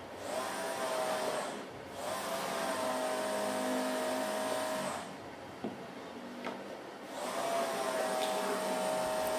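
A steady electric motor whine, like a household appliance running. It cuts out briefly about two seconds in and for about two seconds in the middle, and each time it comes back the pitch rises as the motor spins up.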